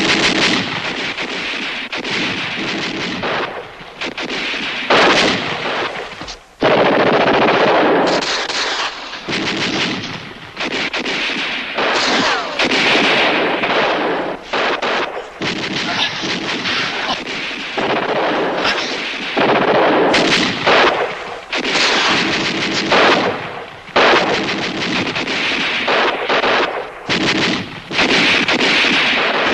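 Sustained battle gunfire: overlapping bursts from automatic weapons mixed with single shots, broken by a few short lulls.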